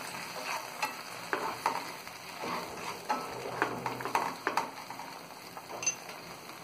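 A spatula stirring and scraping through a cornflour-thickened garlic and spring onion sauce in a hot non-stick frying pan, with repeated short scrapes over a steady sizzle.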